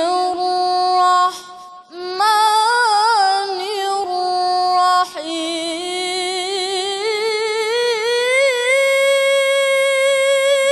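Male Qur'an reciter chanting in the melodic mujawwad style: one high voice holding long notes decorated with quick trills. It breaks off briefly about one and a half seconds in and again about five seconds in, then climbs steadily higher in pitch.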